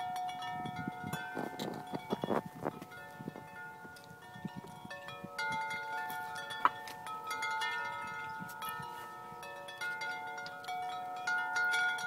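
Large deep-tone tubular wind chime, about 50 inches long, with its long metal tubes struck by the clapper as it sways. The tubes ring with several overlapping tones that carry on between strikes. Low rumbling gusts come about one to three seconds in, and one sharper strike comes about halfway through.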